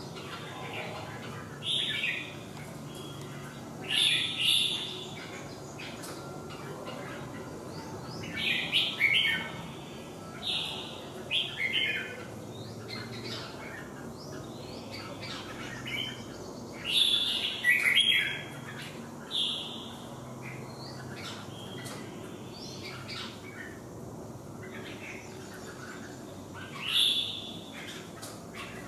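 Caged red-whiskered bulbuls singing in short, loud bursts of chirping phrases every few seconds, with a long pause late on. This is the sparring song of a bird facing off against a rival in the next cage.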